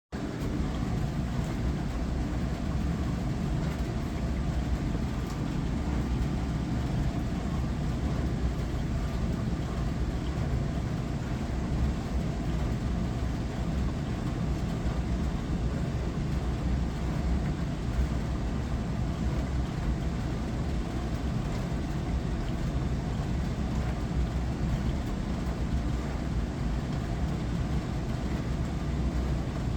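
Glass-front dishwasher running its wash cycle: a steady low hum with an even hiss over it, unchanging throughout.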